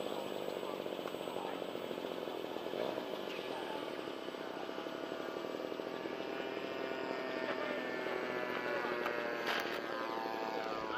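Steady buzzing of a model aircraft's motor and propeller, its pitch drifting up and down with the throttle.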